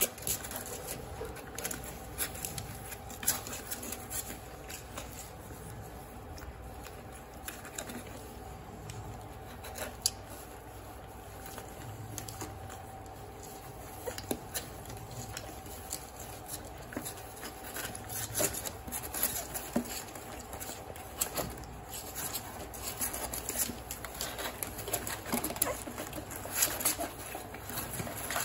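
Two-week-old Miniature Bull Terrier puppies suckling at their mother: a steady patter of small wet clicks and smacks, growing busier in the last third.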